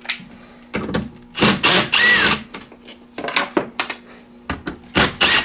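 Cordless drill-driver running in several short bursts as it backs out the bolts on the battery terminals to release the cable lugs.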